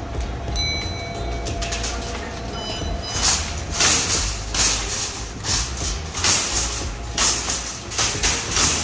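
Metal wire shopping cart being pulled out of a nested row of carts, rattling and clattering in repeated bursts from about three seconds in. A brief ringing chime comes in the first second.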